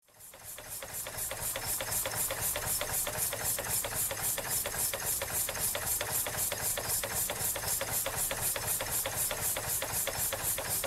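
Small oscillating (wobbler) steam engine of a live-steam model paddle steamer running steadily, with a regular knocking and steam chuff at about four beats a second. The knocking comes from the steam plant not being fixed down in the hull.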